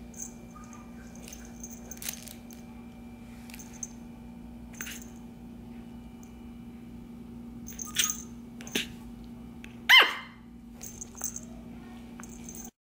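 Shih Tzu puppy playing on a fabric dog bed: scattered rustling and scuffling, with one short high yip about ten seconds in, over a steady low hum.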